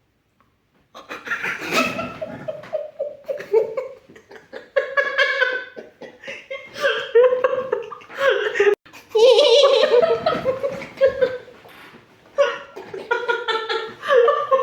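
Hearty, uncontrollable laughter that breaks out about a second in and goes on in repeated bursts, laughing to tears.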